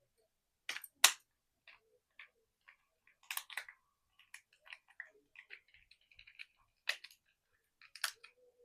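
Small chocolate wrappers being handled and torn open: scattered crinkling and crackling with several sharp snaps, the loudest about a second in.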